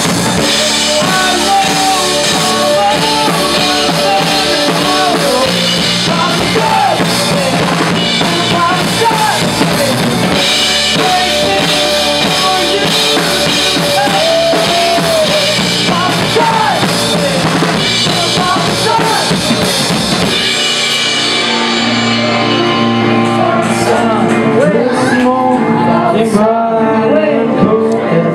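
A live rock band playing: drum kit, electric bass and sung vocals from a woman and a man. About twenty seconds in, the cymbals and drums drop back to occasional hits, leaving the bass and voices.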